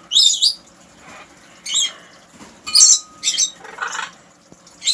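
A parrot giving several short, high-pitched squawks in a row.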